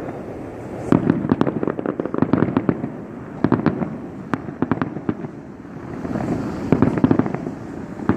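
Fireworks display going off: rapid volleys of bangs and crackling pops, with bursts clustered about a second in, around three and a half seconds in, and again near seven seconds in.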